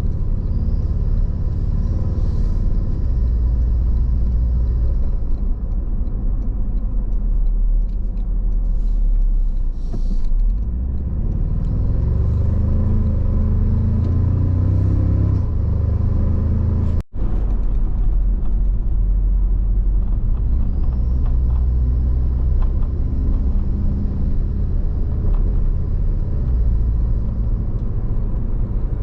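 A road vehicle driving, heard as a steady low rumble of engine and road noise, with the engine note rising for a few seconds around the middle. The sound cuts out very briefly a little past halfway.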